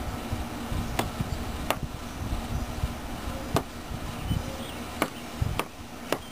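A small bird pecking and striking at its own reflection, giving about six sharp, irregularly spaced taps.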